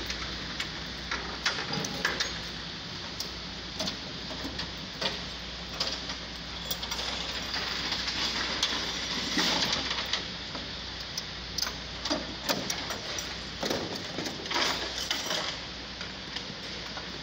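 Scattered metallic clicks and clanks of a mechanic working the wheel tie-downs of a race car on a tow truck's flatbed, over a steady low street hum.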